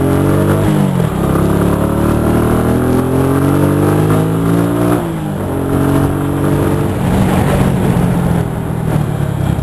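Cruiser motorcycle engine accelerating, its pitch climbing in each gear and dropping at upshifts about a second in and again about five seconds in. Near the end it settles into a steadier, rougher run at a lower pace.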